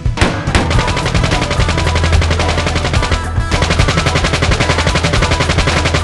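Gunfire sound effects: a few separate shots, then rapid, continuous machine-gun fire from about half a second in, with a brief break a little after three seconds.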